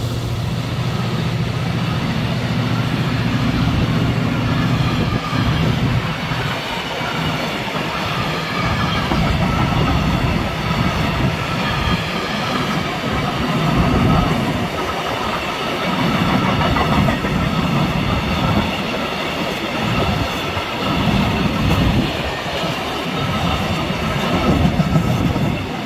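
Freight train's tank wagons rolling past at close range, their wheels clattering over the rail joints in an uneven rhythm. The low steady drone of the HŽ series 2062 diesel locomotive hauling them fades out over the first few seconds.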